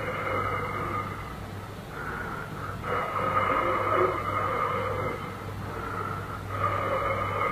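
Eerie radio-drama sound effect: a few held, wavering tones that swell and fade in waves, over a steady low hum from the old recording.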